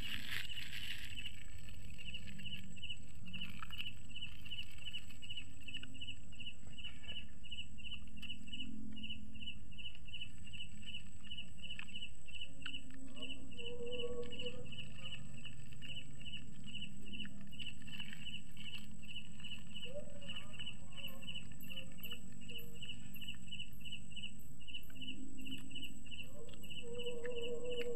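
Crickets chirping steadily: a high, evenly spaced chirp repeating a few times a second, with a few soft clicks and rustles of food and cups being handled close by.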